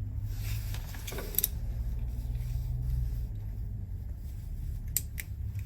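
A steady low hum with a few small sharp clicks, one about a second and a half in and two close together near the end, from wires and a plastic multi-pin connector being handled as a terminal is fitted.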